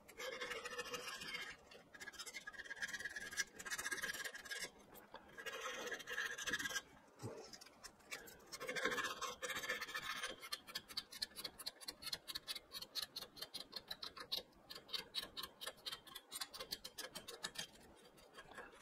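320-grit sandpaper being wrapped around a small dowel, with rustling and scraping. About halfway through, quick, even back-and-forth sanding strokes of the paper-wrapped dowel inside a small cutout in a wooden frame piece, several strokes a second.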